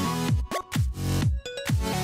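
Electronic dance music with a steady beat of deep kick drums, about two a second, under synth notes.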